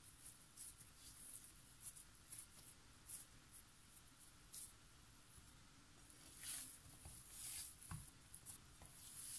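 Faint rustling and scraping of hands pulling apart and rolling soft, crumbly cookie dough in a glass bowl, with a soft thump just before eight seconds in.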